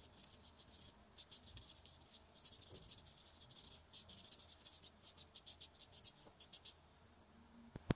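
Faint, rapid scratching of a fine paintbrush dabbing gouache onto paper: many quick short strokes in clusters that stop a little before the end. A single sharp click comes right at the end.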